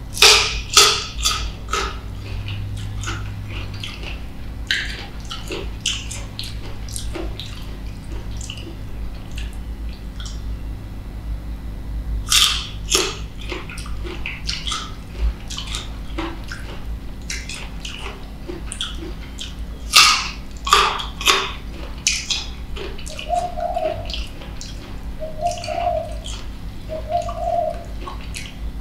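Close-up crisp biting and wet chewing of slices of green mango, with the sharpest bites at the start and about twelve and twenty seconds in. Near the end a dove coos several times in the background.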